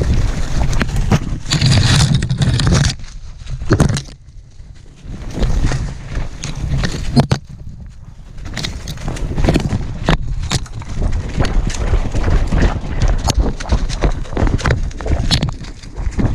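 Quick, irregular footfalls and crunching through dry leaf litter and brush, with twigs snapping and scraping. A low rumble of wind buffets the microphone, and the sound drops off briefly twice.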